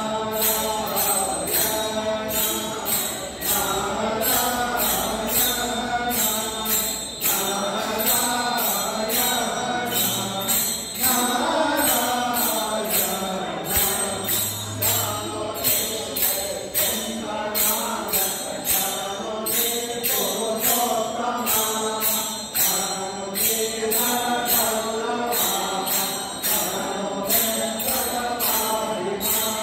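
Group of voices singing a devotional sankirtane melody together, with small hand cymbals struck in a steady beat of about two strikes a second.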